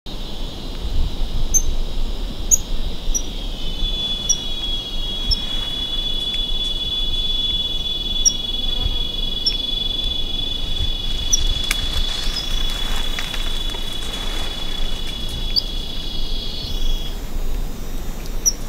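Black-fronted titi monkey alarm sequence to an aerial predator on the ground: a run of short, high-pitched A-calls, roughly one a second, with an occasional B-call among them. Behind them runs a steady high-pitched insect drone, the loudest sound, which cuts off near the end.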